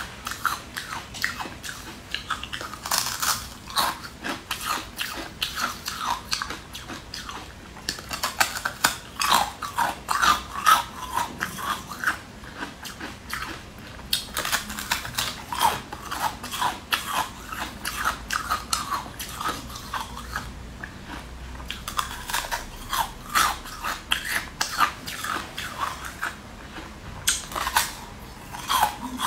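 Biting and crunching through hard coloured ice: a dense run of sharp cracks and crunching chews, close to the microphone.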